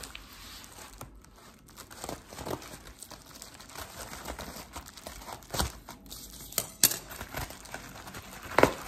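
Bubble wrap crinkling and rustling as it is handled and peeled open by hand, with a few sharper, louder crackles just past the middle.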